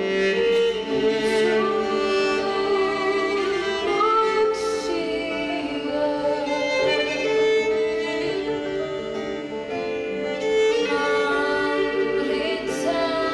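Live acoustic music led by a violin, playing a slow melody of long held notes over a sustained accompaniment.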